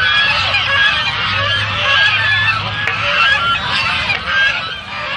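A large flock of white domestic geese calling over one another: a dense, continuous chorus of honks. A faint low hum lies underneath for about the first three seconds.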